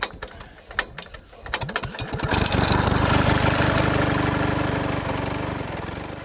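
Engine sound effect: a few scattered knocks and sputters, then about two seconds in an engine catches and runs with rapid, even firing, loud at first and slowly fading out near the end.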